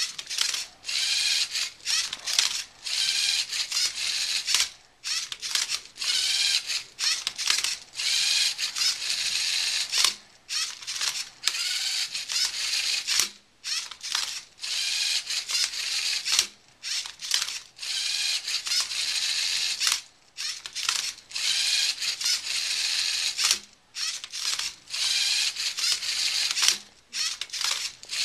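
LEGO Mindstorms robot's electric motors and gear trains whirring in a quick series of short bursts with brief pauses between. Each burst carries a whine that rises and falls as the arm flips and the turntable turns a Rubik's cube.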